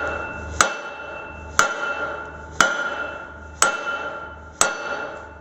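Hammer blows on the metal wheel hub of a Hudson 2ft gauge wagon, knocking a stuck centre cap from the back to shock it out of the seized bearing housing. Five evenly spaced blows about a second apart, each leaving a clear metallic ring.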